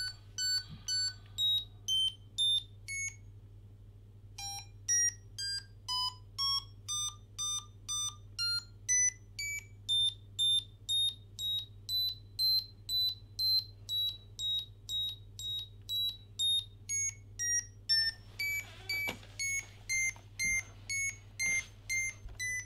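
Small 2-watt speaker driven by an Arduino's square-wave tone output, giving short buzzy beeps about two a second. The pitch of each beep is set by the analog sensor reading and steps up and down from beep to beep, from fairly low to high-pitched, with a brief pause just after the start. A steady low hum sits underneath.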